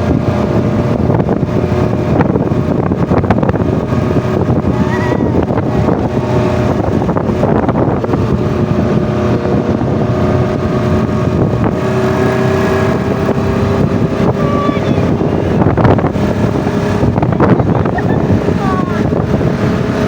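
Off-road vehicle's engine running steadily while riding, with wind buffeting the microphone; the engine note drifts slowly up and down in pitch.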